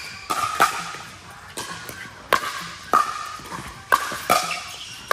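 Pickleball rally: a string of sharp, ringing pops as paddles strike the hollow plastic ball, coming irregularly about every half second to a second, each with a short echo off the hall.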